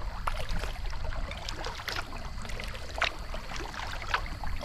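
Kayak paddling: water splashing and dripping off the paddle blades in short, scattered splashes about once a second, over a steady low rumble.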